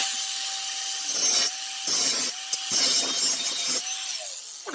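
Power grinder grinding on steel in several passes, its whine dipping under load and recovering in the gaps between them, as it works at a stuck tack-welded nut.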